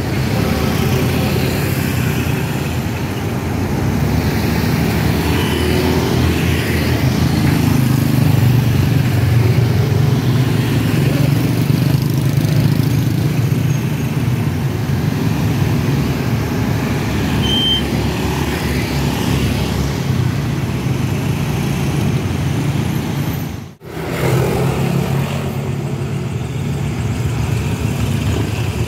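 Steady traffic of motorcycles and cars driving past, a mix of small engines and tyre noise. It drops out for a moment about three-quarters of the way through.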